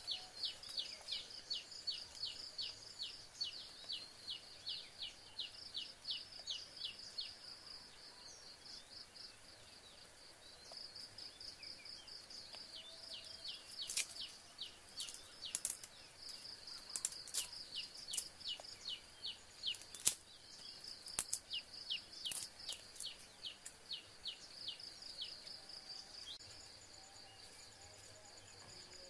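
Insects humming steadily in dry forest, with a rapid series of short high chirps, about five a second, over the first several seconds. Around the middle come a string of sharp clicks as vegetables are cut on a leaf-lined tray.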